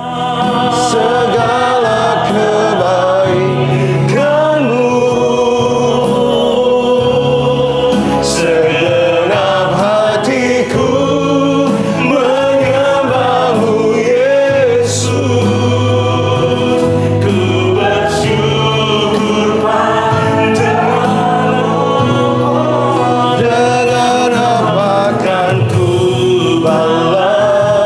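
Christian worship song sung by a group of voices over instrumental accompaniment with sustained bass notes.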